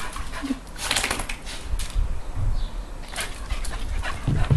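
A dog making small sounds, with scattered short clicks and a low rumble throughout.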